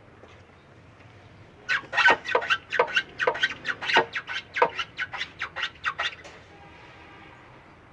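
Car suspension squeaking in a quick run of short, high squeaks, about four a second, as the car is pushed down and rocked: the typical noise of a dry or worn jumper rod (suspension link) bush.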